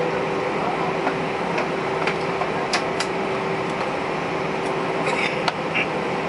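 Steady cabin noise inside an Airbus A320 holding on the ground: an even rush of cabin air conditioning and idling jet engines with a constant hum. A few light clicks and rustles from the cabin come about halfway through and near the end.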